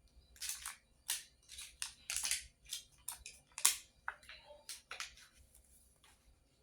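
Packaging crinkling and rustling as it is handled, in a string of short, irregular bursts, the loudest a little past halfway.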